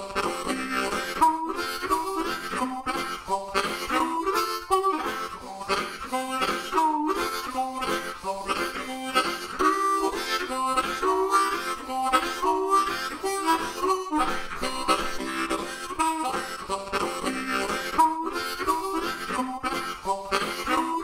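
Background music: a harmonica tune over guitar accompaniment.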